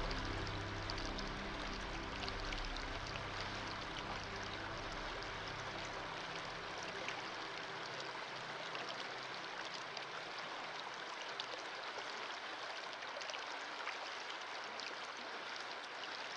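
Fast, shallow river water rushing and splashing over stones in a rapid, a steady even rush. Soft background music fades out over the first few seconds.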